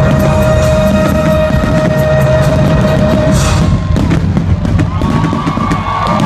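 Fireworks going off, with sharp cracks and bangs over a low rumble, mixed with loud music that holds long steady notes.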